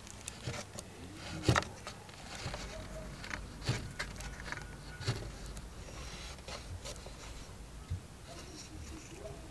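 Fingers pressing and rubbing a small metal spoon lure into a carved recess in a wooden block: soft scraping and rubbing of skin, metal and wood, with scattered light clicks and taps, the sharpest about one and a half seconds in.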